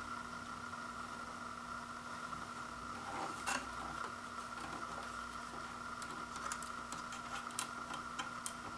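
Light clicks and taps of hands handling a plastic wireless receiver unit, with one knock a little before halfway and a run of small clicks near the end, over a steady background hum.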